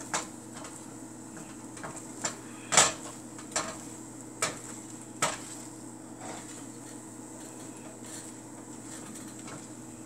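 A spatula scraping and knocking against a nonstick frying pan while scrambling eggs, with several sharp knocks in the first five seconds, the loudest about three seconds in, and quieter stirring after that, over a steady low hum.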